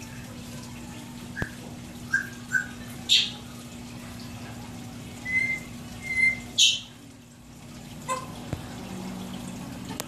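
Steady low hum and running water of a saltwater aquarium's pump and overflow plumbing. Over it come several short, high chirps and whistle-like peeps, and two sharp hissy squeaks about three and six and a half seconds in.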